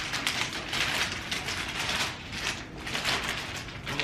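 Gift wrapping paper crinkling and rustling in repeated bursts as a wrapped present is handled.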